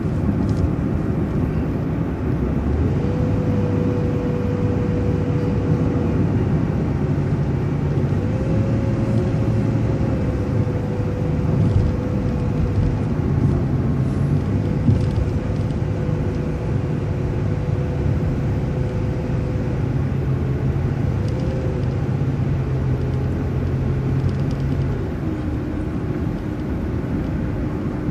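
City transit bus engine and drivetrain running while driving, heard from inside the bus: a steady low drone with a whine that shifts in pitch several times and drops lower near the end.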